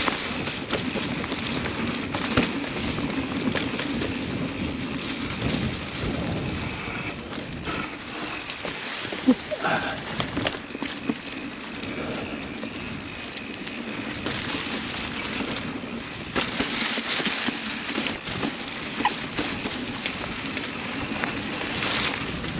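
Mountain bike rolling along a dirt trail: tyres on dirt and roots, with frequent clicks and knocks from the bike over bumps, and wind on the microphone.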